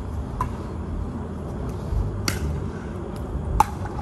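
Pickleball rally: three sharp pocks of paddle striking the plastic ball, a couple of seconds apart, the last the loudest, over a low steady rumble.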